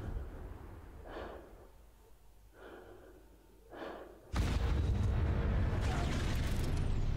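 Three soft breaths in a hush, then a little over four seconds in a sudden loud explosion boom that carries on as a deep rumble: an atomic bomb test blast sound effect.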